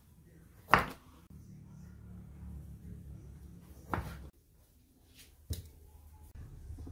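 Kitchen knife cutting through calamansi and striking a thick wooden chopping board: three sharp knocks, the loudest about a second in, another about four seconds in and a lighter one about five and a half seconds in.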